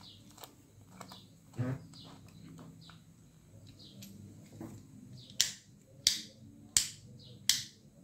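Rocker switch of a double-pole switched British socket outlet clicking on and off four times, about 0.7 s apart, starting about five seconds in, after faint handling sounds and a small knock. The switch's contacts, once welded shut by a short circuit, have been freed, and it now snaps cleanly: a pleasant sound.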